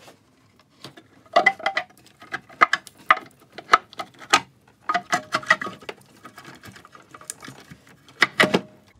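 Irregular clicks, knocks and clinks of hand work on an engine top as the metal valve cover is worked loose and lifted off, with a louder knock near the end.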